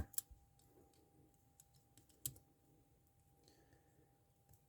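Near silence with a few faint small metal clicks, the loudest about two seconds in: a thin collar shim being worked into a Yuil handcuff's ratchet.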